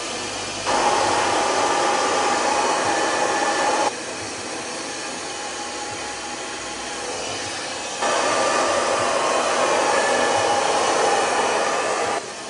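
Handheld hair dryer blowing steadily while wet hair is dried. It gets suddenly louder about a second in, drops back near four seconds, and is louder again from about eight seconds until just before the end.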